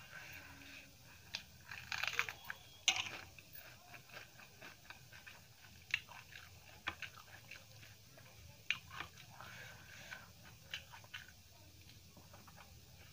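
Close-up eating by hand: fingers working rice and curry with crushed papadam on a steel plate, with chewing and short crisp crunches. Many small scattered clicks and crackles, busiest about two to three seconds in.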